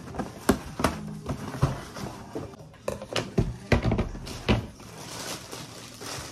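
Cardboard box being handled and opened by hand: a run of sharp knocks and scrapes as the lid and flaps are moved, then tissue paper rustling near the end.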